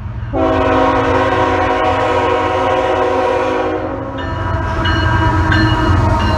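Lead diesel locomotive CN 3115 sounding its multi-note air horn for a road grade crossing: one long blast of about three and a half seconds, then a second blast starting about four seconds in, over the low rumble of the locomotives' engines as they approach and pass.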